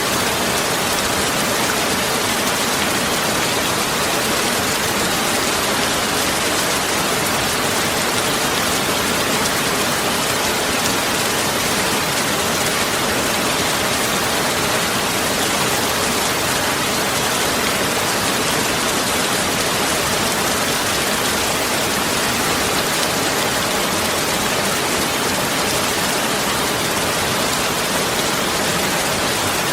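Heavy rain falling steadily, a dense even hiss of drops with no breaks or single events.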